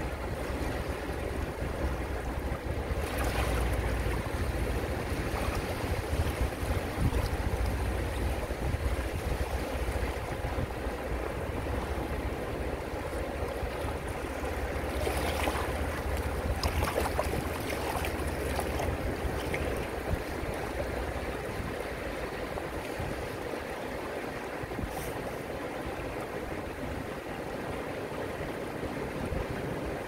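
Small ocean waves washing in over rocks and sand: a steady rush and fizz of water, swelling briefly about three seconds in and again around the middle.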